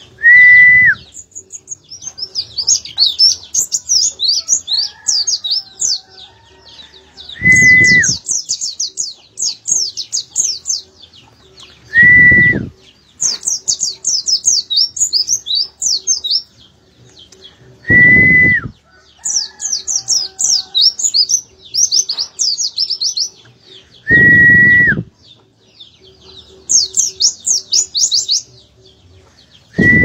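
Caged white-eye (pleci) singing hard in quick, high twittering phrases a few seconds long, with short gaps between them. About every six seconds a louder one-second sound with a steady high tone, dropping at its end, cuts in.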